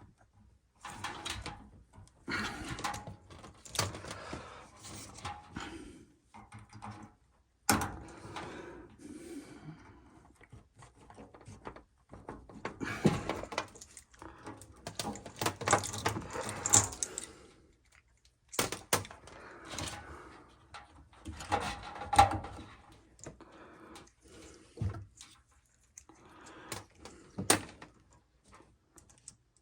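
Tools and parts being handled: irregular clatter and rustling with several sharp knocks, broken by short quiet gaps.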